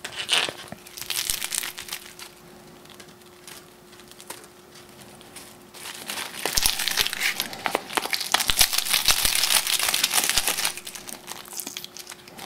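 Dried sinew being rubbed and twisted between fingers and thumbs, a dry crackling and crinkling as it loosens and splits into separate fibres. The crackling comes in short bursts at first and is densest and loudest for a few seconds from about halfway through.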